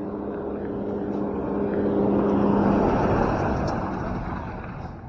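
A motor vehicle passing by, its engine hum and road noise growing louder to a peak about two and a half seconds in, then fading away.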